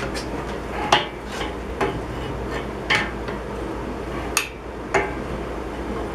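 A hammer striking steel in about six sharp, ringing blows at uneven intervals, over a steady low rumble.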